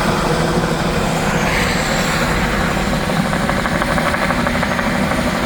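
A helicopter running, its turbine and rotor loud and steady, with a fine rhythmic pulsing from the rotor through the middle of the sound.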